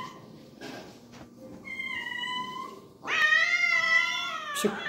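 Domestic cat meowing twice: a shorter meow about a second and a half in, then a longer, louder meow from about three seconds in that lasts until near the end.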